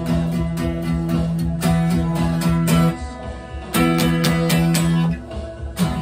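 Instrumental section of a song: guitar strummed in a steady rhythm of about three strokes a second over held low notes, breaking off briefly about halfway and again near the end before a single final stroke.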